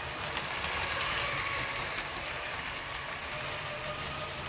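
Motorised Lego Orient Express train running on 9-volt Lego track: a steady whirr of its 9-volt motors, an ungeared one in the loco and a train motor in the tender, with the wheels rolling and clattering over the plastic track. It gets a little louder about a second in as the train passes close.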